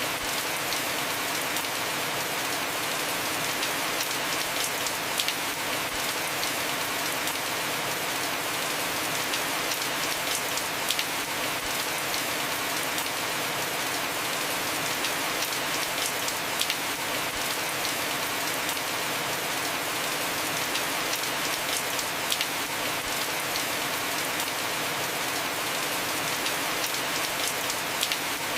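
Heavy rain falling steadily on a roof, an even hiss with scattered sharper drop hits.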